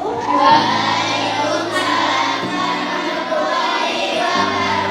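A group of voices singing together over a held accompaniment chord that changes a few times.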